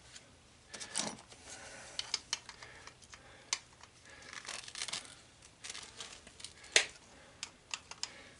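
Irregular small metal clinks, knocks and scrapes as a copper tube in a brass fitting is worked against a socket on a workbench, with one sharper clank a little before the end.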